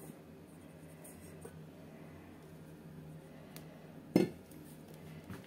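Quiet kitchen with a faint steady hum, then one sharp knock of dishware about four seconds in, with a smaller tap near the end: bowls or utensils being handled and set down on the counter.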